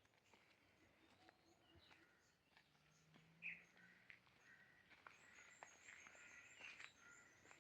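Faint birds calling in the background: scattered short chirps, with one louder chirp a little past halfway and a quick run of short high notes near the end.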